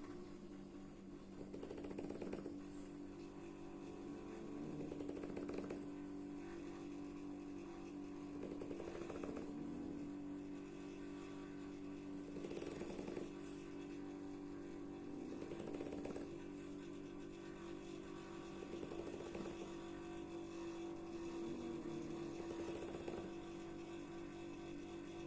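Slow, regular snoring of a sleeper, one snore about every three to four seconds, over the steady hum of a running refrigerator.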